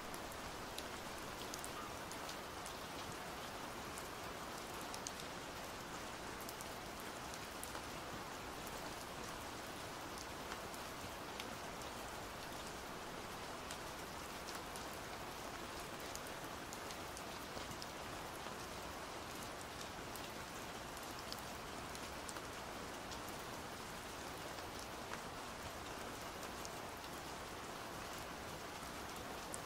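Steady pouring rain: an even hiss with many small drop ticks scattered through it.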